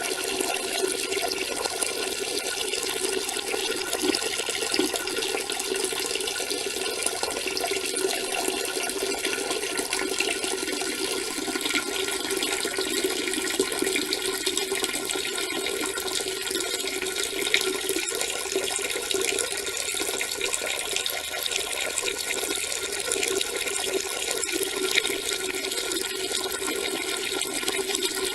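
A person peeing: a steady stream of urine splashing into water, running without a break.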